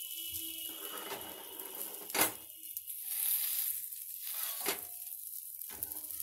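Sabudana-potato tikkis sizzling in a little ghee on a tawa, while a steel spatula scrapes under them and knocks on the pan as they are flipped and pressed. The loudest knock comes about two seconds in, another near five seconds.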